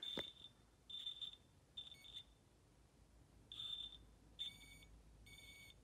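A single old Fire-X smoke alarm sounding in alarm: faint, high-pitched beeps in the three-beep temporal pattern, three beeps about a second apart, a pause, then three more. The interconnected alarms are not joining in.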